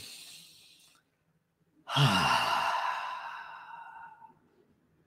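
A man taking a slow deep breath: a faint inhale, a pause of about a second, then a long sighing exhale that starts loud and fades over about two and a half seconds.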